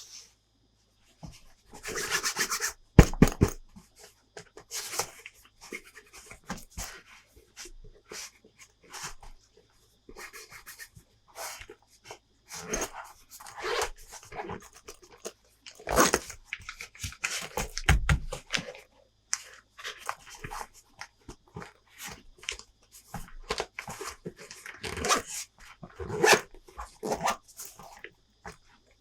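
Plastic toy parts and packaging being handled: irregular clicks, knocks and rustles, with a sharper knock about three seconds in and others around sixteen and eighteen seconds in.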